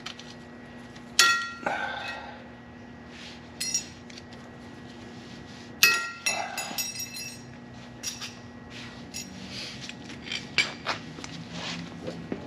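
Loose metal brake parts and tools clinking and clanking together while brake hardware is handled: two sharp, ringing clanks, about a second in and near six seconds in, then a run of lighter clinks.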